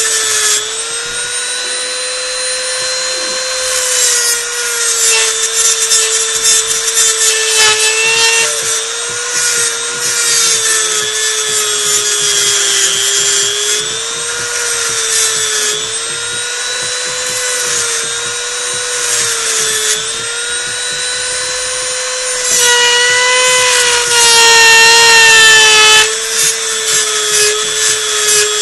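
High-speed rotary tool with a cutting wheel grinding a wire notch into a small metal plate: a steady motor whine that sags and recovers in pitch as the wheel is pressed into the cut, over a harsh grinding hiss that gets louder for a few seconds near the end.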